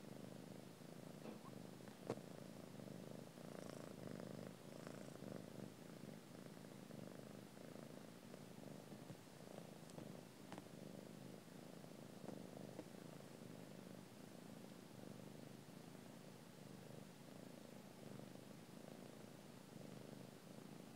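Soft, steady purring of a mother cat nursing newborn kittens, with one sharp little click about two seconds in.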